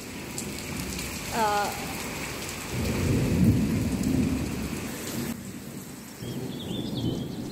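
Heavy rain pouring steadily onto a paved, flooded parking area, with a low rumble of thunder swelling about three seconds in.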